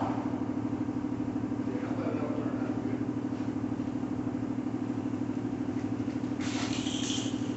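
Hiss of an air spray gun laying paint on a boat hull over a steady, rapidly pulsing machine hum. The hiss gets louder near the end.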